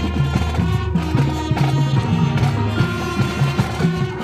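Marching band playing: brass and percussion over a repeating low bass figure with a steady beat.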